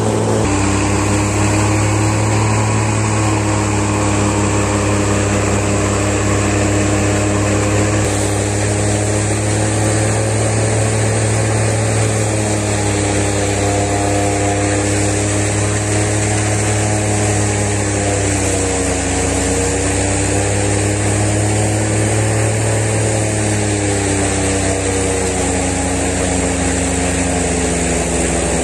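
An engine running steadily, its pitch sagging slightly and rising again near the end.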